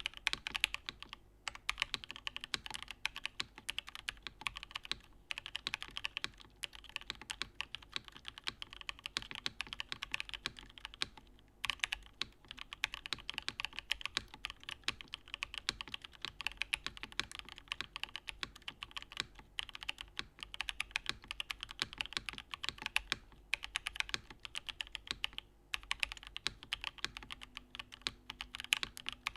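Fast, continuous typing on a Pluto by Saab custom mechanical keyboard with an aluminium plate in top-mount configuration, a dense run of keystroke clacks broken by a few short pauses.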